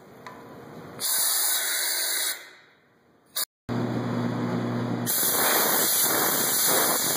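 Compressed-air blow gun hissing as it blows soapy water out through engine oil galleries: one short burst of about a second and a half, then a long continuous blast through the crankshaft's oil passages, spraying mist. A steady low hum runs under the start of the second blast.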